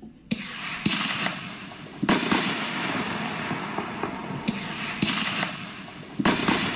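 Fireworks going off: sharp bangs, mostly in close pairs about every two seconds, with crackling in between.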